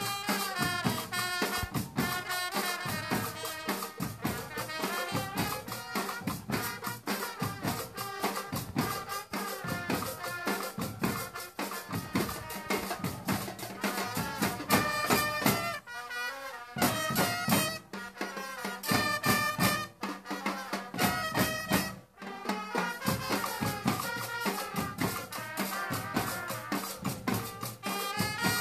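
Marching band playing: a trumpet carries the melody over snare drums and a bass drum keeping a steady beat, with a couple of brief breaks in the music.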